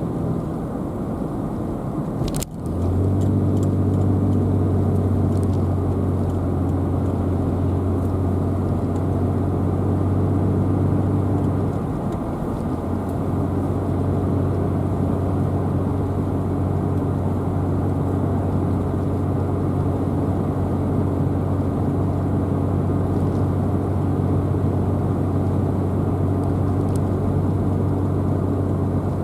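A car driving, with steady engine and road noise under a low hum. About two and a half seconds in there is a sharp click and a brief dip, after which the low hum is louder; it eases slightly around twelve seconds in.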